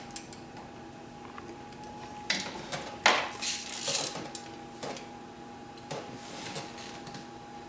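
A hex tool working the top Allen bolt that holds an Action Trackchair drive motor: scattered metal clinks and scrapes, the loudest about three seconds in.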